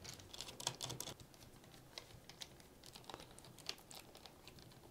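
Faint, scattered small clicks of a Phillips screwdriver working screws out of a laptop's plastic base: a quick cluster in the first second, then single ticks every second or so.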